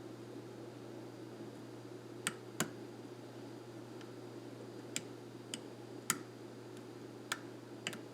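Small sharp metallic clicks of a lock pick and tension wrench working the pins of a pin-tumbler lock core during single-pin picking, about seven clicks at irregular intervals over a faint steady hum.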